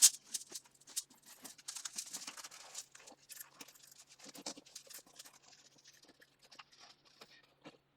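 Handling of a steel armour helmet being put on: a sharp knock at the start, then scattered scratching, rustling and small clicks from its straps and linen padding that thin out near the end.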